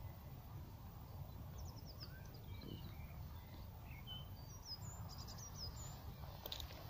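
Faint birdsong: short, high chirps, some in quick runs of several notes, over a low, steady rumble.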